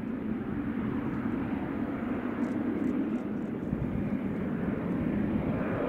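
Jet airliner's engines running, a steady rush of noise.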